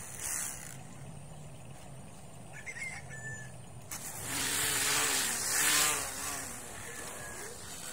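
Cordless electric string trimmer running, its motor humming steadily. From about four seconds in it gets louder and rougher for a couple of seconds as the spinning line cuts grass.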